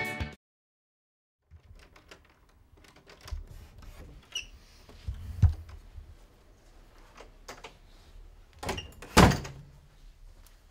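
Interior door being handled: clicks of the knob and latch and several thuds, the loudest about nine seconds in.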